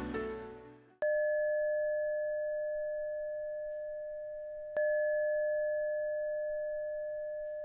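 A gong struck twice, nearly four seconds apart. Each strike rings with a clear, steady tone that slowly fades. Background music fades out just before the first strike.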